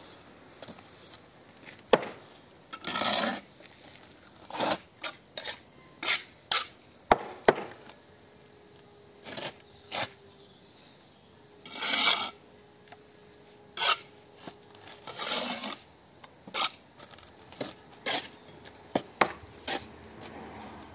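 A steel bricklaying trowel scraping wet mortar off perforated red facing bricks, with sharp knocks of trowel on brick as each brick is tapped down to the line. About a dozen separate scrapes and knocks, with short pauses between them.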